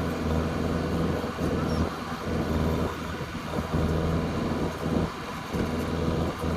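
JCB backhoe loader's diesel engine working hard, its note swelling and easing again and again as the load on it changes.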